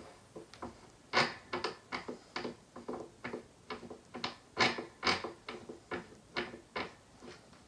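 Threaded metal adapter being screwed by hand into the head of a Neptune 500 Series metering pump: a string of light, irregular clicks and taps, about three a second.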